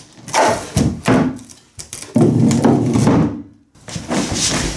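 Repeated thumps and knocks against a wooden box on a table, with a louder, longer stretch of noise about two seconds in.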